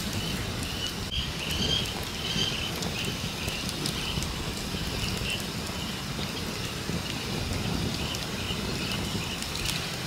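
Small open wood fire crackling with scattered faint ticks and snaps over a steady low rumble, with a few faint high chirps in the first few seconds.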